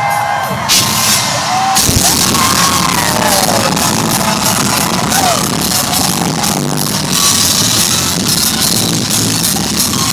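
Loud rock music with drums, kicking in with a hit about two seconds in, as members of a crowd yell and whoop over it.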